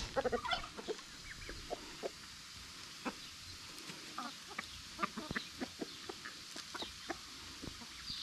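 A flock of backyard hens clucking quietly as they feed on apricots, with scattered short clicks and taps.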